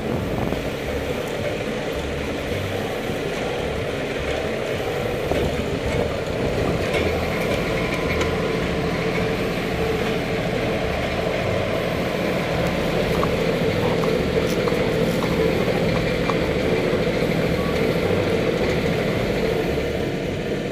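Compact tractor engine running steadily as it pulls a loaded trailer over rough ground.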